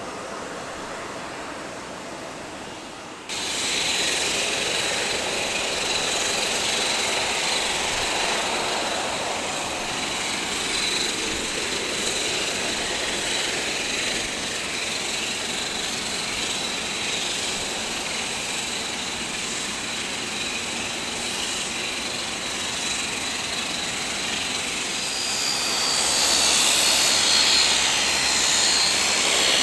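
De Havilland Canada Dash 8-400 turboprop taxiing, its Pratt & Whitney PW150A engines and propellers running as a steady rush with a thin high-pitched whine, growing louder near the end. A quieter engine rush before it stops abruptly about three seconds in.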